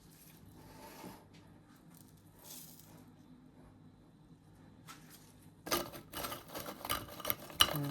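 Faint rustling, then from near the end a dense run of clicks and scrapes: sodium hydroxide lye being stirred into frozen nettle-tea ice cubes in a container.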